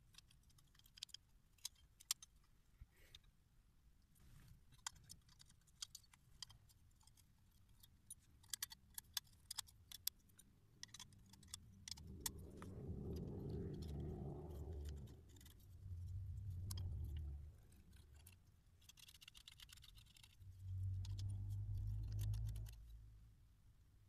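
Small metal clicks and clinks of a mortise door lock's body, latch and springs being handled and worked by hand. In the second half a low rumble rises and fades three times, louder than the clicks.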